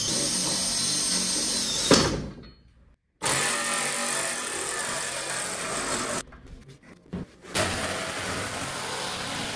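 A cordless drill running in steady runs on a wooden panel frame, with a sharp click about two seconds in. Near the end a Ryobi cordless jigsaw cuts steadily through the MDF-sheathed 2x2 frame to open a doorway.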